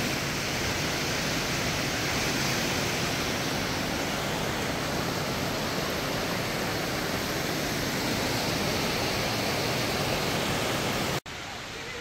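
Steady rush of falling water from a waterfall and stream. It cuts off abruptly near the end, leaving a much quieter background.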